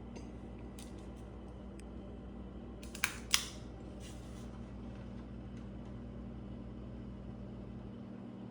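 A 48-inch electric fan running with a steady low motor hum. Two sharp clicks come about three seconds in.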